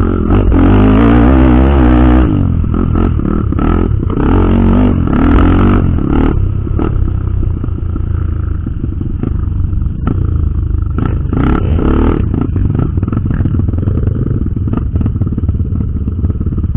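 Dirt bike engine revving hard for about two seconds, then running at lower revs, with repeated rattles and knocks over rough trail.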